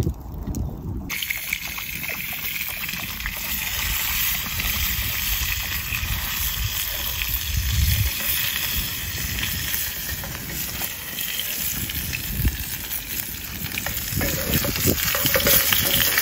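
Trout frying in a pan, a steady sizzling hiss, with low rumbling on the microphone underneath.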